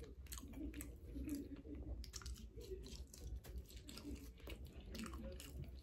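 A person chewing a mouthful of cheese-topped seasoned fries close to the microphone: faint, irregular chewing sounds.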